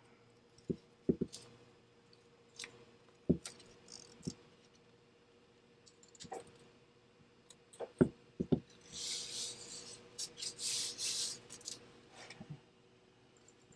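Blue painter's tape being handled and pressed along a wooden plank: scattered light taps and knocks, with a few seconds of crackly hiss a little past the middle.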